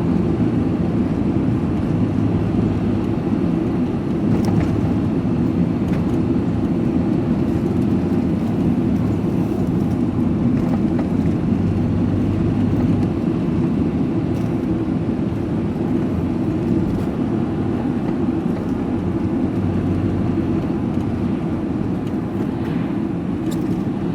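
Steady engine and road noise of a moving vehicle, heard from inside the cabin while driving along.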